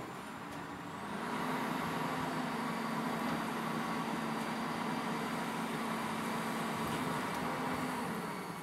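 Autocar garbage truck with a McNeilus rear-loader body: the engine speeds up about a second in and holds a steady, higher-pitched hum while driving the loading hydraulics, then drops back to idle near the end.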